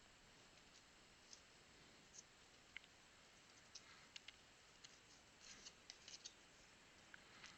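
Near silence with faint, scattered clicks and light scrapes of trading cards being handled and slid against one another, most of them in the middle of the stretch.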